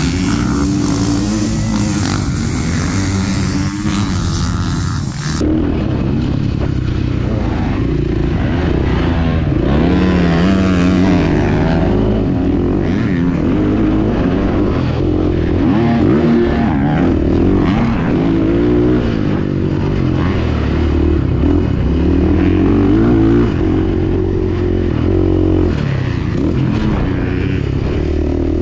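Motocross dirt bike engines racing: first several bikes passing on the track, then, after a cut about five seconds in, one bike's engine heard close up from the rider's onboard camera, revving up and down in pitch through throttle changes and shifts.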